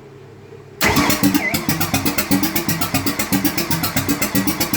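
Ford 302 V8 with a roller cam being cranked by its starter, which kicks in about a second in: a fast, even chugging that never catches. The engine cranks but won't fire, though the owner has found spark at one plug.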